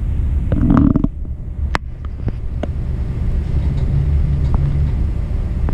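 Stratasys F170 3D printer running while it loads and purges ABS material: a steady low hum from its fans and drives, with a short louder burst about half a second in and a few sharp clicks after it.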